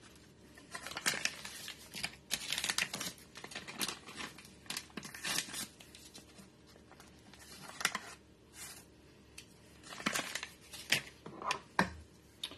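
Paper taco-seasoning packets crinkling and rustling in irregular bursts as they are shaken and emptied by hand, with a few sharp clicks near the end.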